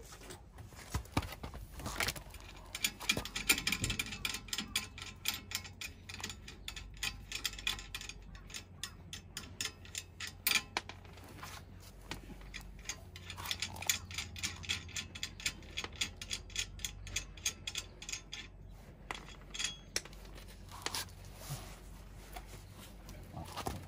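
Rapid metallic clicking in two long runs, one about two seconds in and the other from about thirteen seconds in, from hand work on the nuts of a bolt-on wheel spacer at a car's wheel hub.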